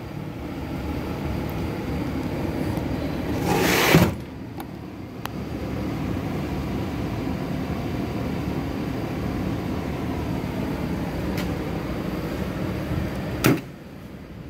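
A metal tool chest drawer loaded with loose nuts and bolts slides shut about four seconds in, over a steady low shop hum. A shorter knock or scrape follows near the end.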